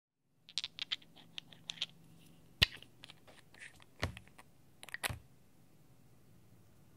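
Small clicks and taps of nail polish bottles and their plastic caps being handled and unscrewed. A quick run of light clicks comes first, then a sharper click about two and a half seconds in, and two heavier knocks around four and five seconds in.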